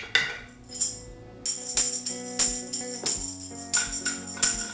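Tambourine struck by hand, its jingles ringing: a strike at the start, then from about a second and a half in a steady beat of about three strokes a second over a music track with held notes.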